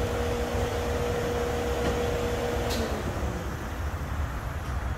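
Steady low rumble of an idling semi truck's diesel engine, with a steady hum over it that stops just under three seconds in, right after a sharp click.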